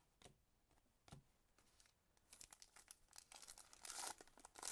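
Wrapper of a baseball trading-card pack being torn open and crinkled, starting about halfway in and growing louder toward the end, after a couple of faint clicks.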